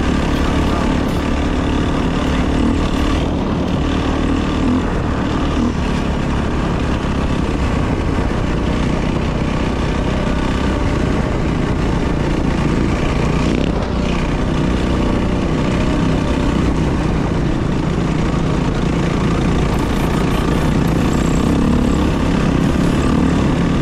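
Dirt bike engine running continuously while riding, held at fairly steady revs with small rises and falls in pitch.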